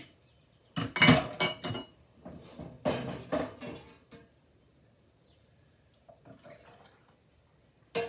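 Kitchenware clatter as a cooking pot, a metal ladle and glass canning jars are handled: a loud burst of knocks and clinks about a second in, another around three seconds, faint knocks around six seconds, and a single sharp clink near the end.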